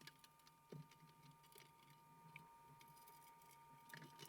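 Near silence: a faint steady high tone, with scattered faint clicks and a couple of light knocks, one about a second in and one near the end.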